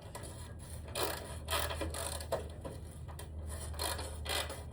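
Tool work on the ladder: a series of short rasping strokes, roughly two a second, starting about a second in, over a low steady hum.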